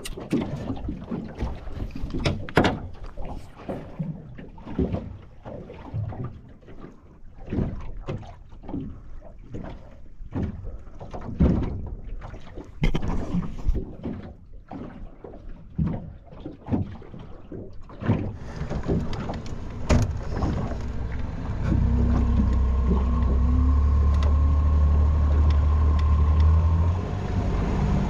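Irregular knocks and thumps aboard a small fishing boat. About two-thirds of the way in, these give way to an outboard motor running with a steady low hum, which eases off near the end.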